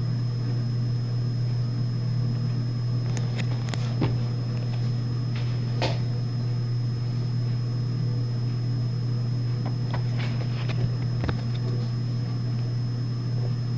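A steady low hum, with a few faint clicks about four, six and eleven seconds in.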